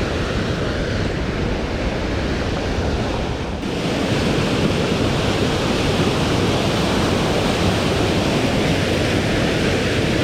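Steady rushing of a mountain creek's waterfall running high with snowmelt. About three and a half seconds in, the rush abruptly becomes louder and brighter.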